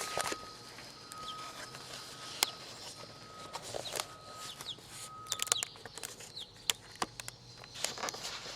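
Scattered sharp clicks and knocks, the loudest several seconds in, with short bird chirps and a faint steady whistle-like tone that comes and goes over the first half.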